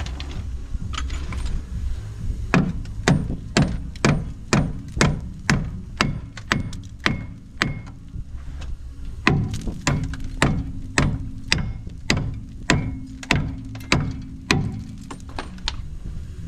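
Hammer striking metal over and over, about two blows a second, each with a short ring, with a brief pause midway, over a steady low hum.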